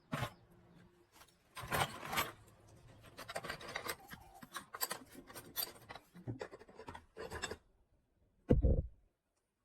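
Hand scraping and rubbing on a part in a run of irregular strokes, then one heavy dull thump near the end.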